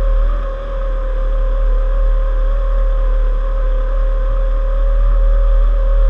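Small racing outboard motor on a homemade hydroplane running at a steady speed, heard from on board: one held engine tone that barely changes pitch, over a heavy low rumble.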